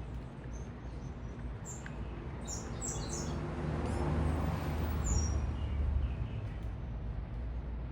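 Small birds chirping in short high notes, a quick cluster about two and a half seconds in and another call about five seconds in, over a low traffic rumble as a vehicle passes, swelling to its loudest in the middle and then fading.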